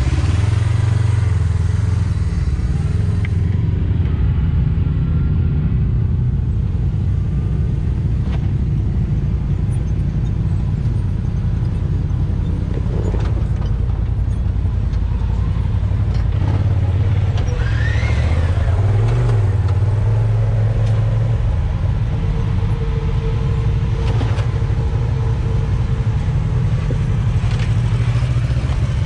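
Side-by-side UTV engines running at low speed with a steady, deep rumble as the machines crawl over rock.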